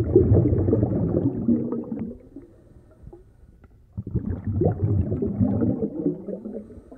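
Low, irregular rumbling noise in two swells, each about two and a half seconds long, with a quieter gap between them about halfway through.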